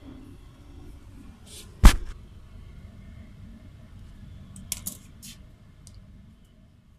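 A single sharp knock about two seconds in, then a quick run of three or four lighter clicks around five seconds, over a low background rumble that fades away near the end.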